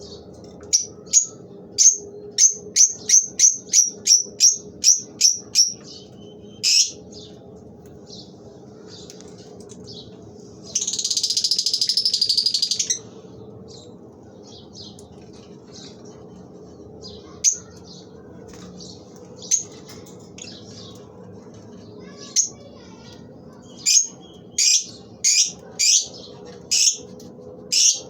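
Fischer's lovebirds calling: a fast run of short, sharp, high chirps at about two a second, then a harsh continuous chatter lasting about two seconds near the middle, then scattered chirps and another quick run near the end.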